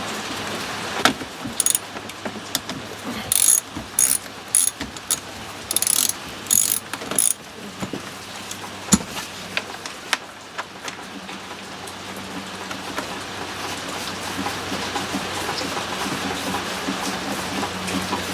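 Ratchet wrench turning out bolts in a series of short clicking strokes over the first several seconds. After that a steady low hum comes in and slowly grows louder.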